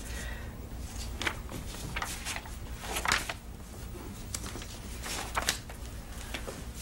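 Scattered soft knocks and rustles of movement in a quiet room over a steady low hum, the loudest about three seconds in.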